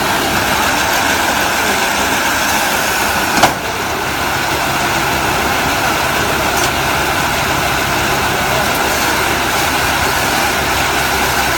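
Round hay baler running steadily with its engine and machinery at a constant pace, with one sharp clack about three and a half seconds in.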